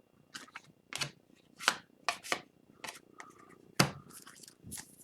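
Trading cards being handled by hand: about a dozen short, irregular rustles and snaps as the cards are slid and flicked through.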